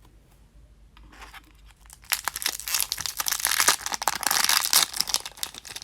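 Plastic blind-bag packaging of a Disney Doorables Mini Peek pack crinkling and tearing as it is ripped open by hand. It starts faint about a second in and becomes loud, dense crackling from about two seconds in.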